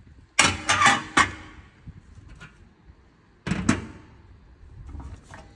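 New steel brake discs and dust-shield backing plates clanking together as they are handled. A quick run of about five ringing metal clanks comes about half a second in, then two more around three and a half seconds, with a few light clicks near the end.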